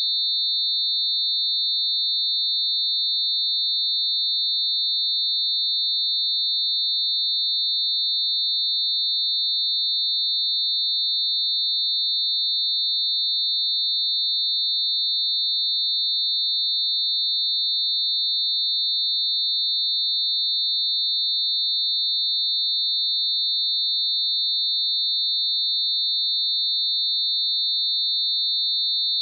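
Synthesized mix of a few pure high-pitched tones lying close together, held perfectly steady.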